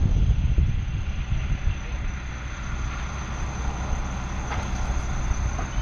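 Semi-truck's diesel engine running at low speed with a low rumble, heaviest in the first second.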